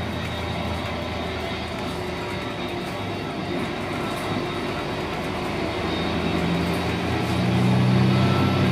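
Scania K280UB city bus heard from inside the cabin: its 9.3-litre five-cylinder Scania DC9 diesel running under way through a ZF Ecolife six-speed automatic. The engine note grows louder from about six seconds in.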